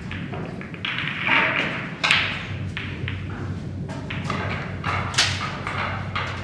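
Snooker cue striking the cue ball with a sharp click about two seconds in, then another sharp knock about five seconds in as the ball travels round the table. Fainter clicks and a low steady hum sit behind.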